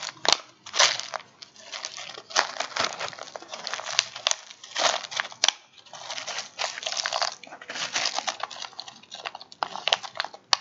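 Irregular crinkling and crunching as crumpled white fill material is pressed and worked into a small clear plastic box of gravel, with a few sharp clicks among the rustling.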